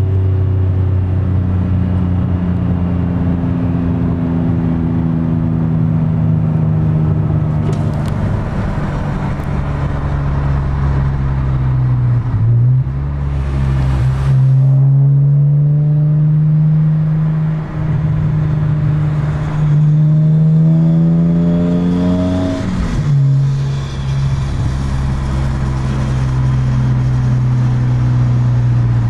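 BMW E46 M3's straight-six engine heard from inside the cabin, pulling steadily up through the revs twice. Its pitch drops about twelve seconds in and again about twenty-three seconds in, then it holds a steady cruise. A brief rush of noise comes about fourteen seconds in.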